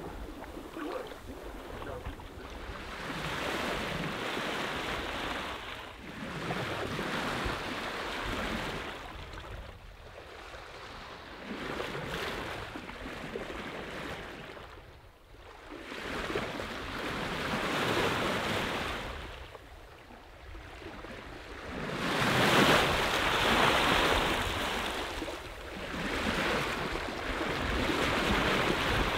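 Water rushing and splashing along a sailboat's hull as it sails through open sea, swelling and fading every few seconds as the boat meets the waves.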